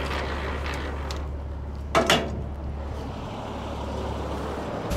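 Caterpillar C15 inline-six diesel of a Peterbilt 389 idling steadily, with one short, sharp, loud noise about two seconds in.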